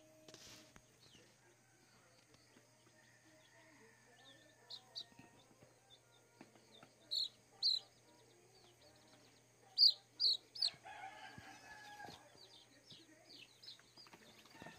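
Day-old Rhode Island Red chicks peeping: short, high chirps throughout, with two pairs of loud peeps about seven and ten seconds in.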